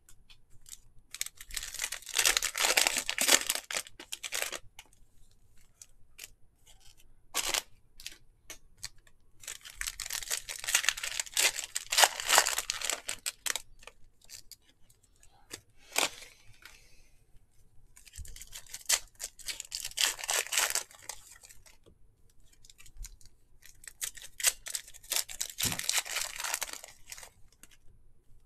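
Trading card pack wrappers being torn open and crinkled in four bursts a few seconds apart, with single sharp clicks from the cards and packs being handled in between.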